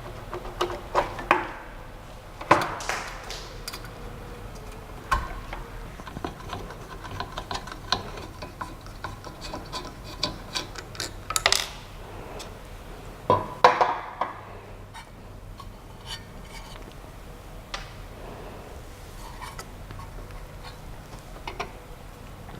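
Irregular clicks, taps and rubbing of small hard objects being handled, with a few louder knocks about two and a half seconds in and around eleven and thirteen seconds in, over a faint low hum.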